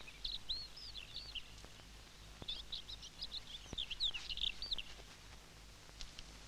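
Small birds chirping in quick runs of short, high chirps, in two spells: one at the start and a longer one from about two and a half seconds in. Faint background hiss lies beneath.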